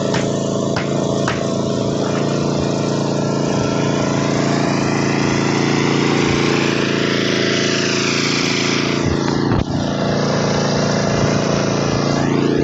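Hitachi Zaxis excavator's diesel engine running steadily under load, with a few sharp knocks in the first second and a half.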